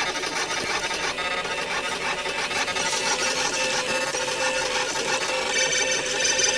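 A Prusa-style RepRap 3D printer's stepper motors whirring and buzzing as the axes move, the pitch jumping from one short steady tone to the next.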